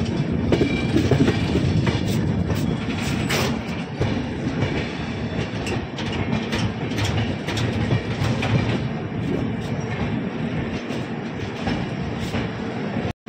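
Passenger train running on the rails, heard from an open coach door: a steady rumble with irregular clicks and knocks from the wheels. The sound cuts out abruptly just before the end.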